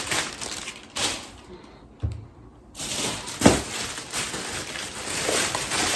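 Grocery packaging rustling and crinkling as items are handled and unpacked, with a few knocks of things being set down, the sharpest about three and a half seconds in.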